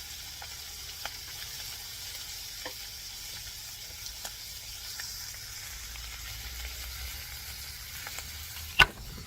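Dried fish sizzling in hot oil in a frying pan: a steady hiss with scattered small spattering pops, and one sharp knock near the end.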